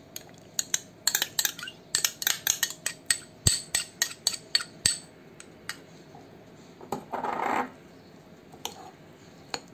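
Metal spoon clinking and scraping against glass bowls as mayonnaise is scooped out, a quick run of sharp clicks over the first five seconds or so. A short scrape follows about seven seconds in, then a few scattered taps.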